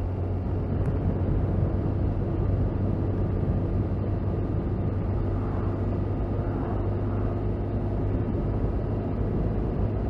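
Motorcycle riding at a steady speed: a steady low engine hum under an even rush of wind and road noise.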